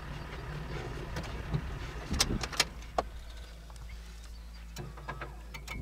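Vehicle engine idling with a steady low hum, with a handful of sharp clicks and knocks about two seconds in and a few more near the end.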